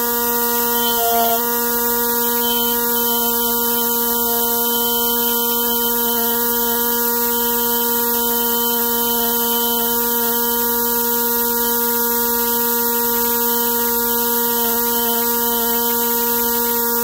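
Handheld fossil-preparation scribe buzzing steadily at one fixed pitch as its needle chips rock matrix away from a fossil leaf.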